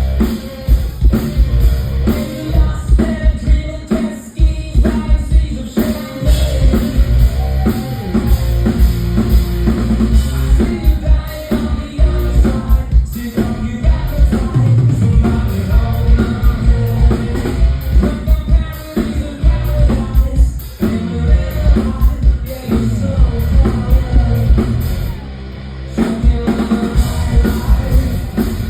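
Live rock music from a bass-and-drums duo: heavy distorted bass guitar and a pounding drum kit, with a male lead vocal singing over them. The band drops back briefly about 25 seconds in.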